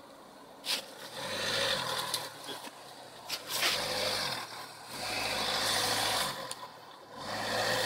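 Ford Kuga SUV engine revving in four surges of about a second each, with tyres churning in mud and snow as it works up a slippery slope.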